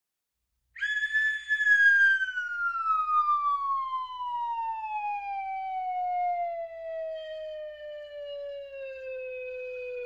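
Cartoon falling-whistle sound effect: one long whistle tone that starts about a second in and slides slowly and steadily down in pitch.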